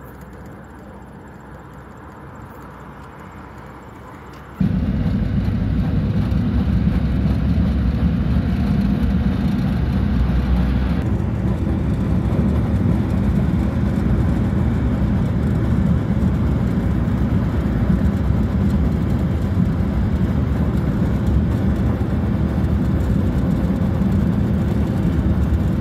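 Moving vehicle's engine and road noise. It is a quiet steady hum at first, then after about four and a half seconds it jumps abruptly to a loud, steady low rumble of engine, tyres and wind.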